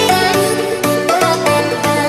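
Background music with a steady beat and bright melodic notes.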